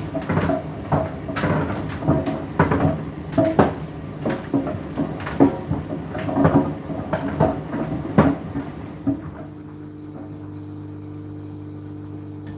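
Indesit IDC8T3 condenser tumble dryer running: irregular knocks and thuds of the load tumbling in the drum over a steady motor hum. About nine seconds in the knocking stops and only the steady hum carries on.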